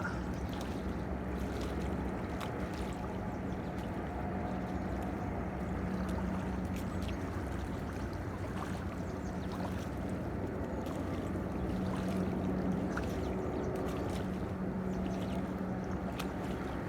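Steady low hum with a constant water wash, the sound of a small fishing boat moving slowly on the river, with a few faint clicks.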